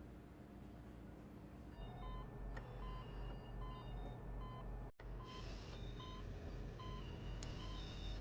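Faint electronic background music of short, high, blip-like notes at several pitches over a pulsing low bass. It comes in about two seconds in, after faint room tone, and breaks off for an instant near the middle before going on.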